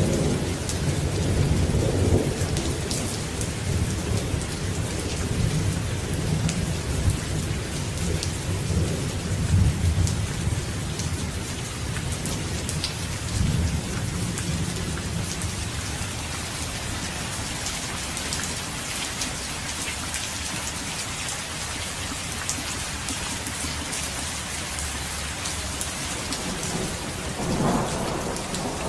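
Steady heavy rain with scattered drop patter, under a low rolling thunder rumble that dies away about halfway through; near the end a new, louder thunder rumble begins to build.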